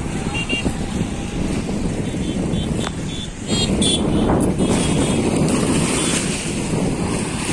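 Wind buffeting the microphone over choppy open water, with waves lapping and splashing on the shore; a steady loud rush that swells a little about three seconds in.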